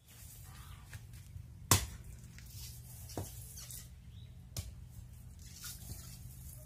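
A few sharp clicks and knocks over a low steady hum: the loudest about two seconds in, then two lighter ones each about a second and a half later.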